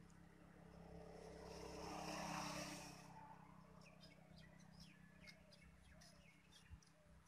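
Faint outdoor ambience: a distant engine hum swells and fades over the first three seconds, then small birds chirp here and there.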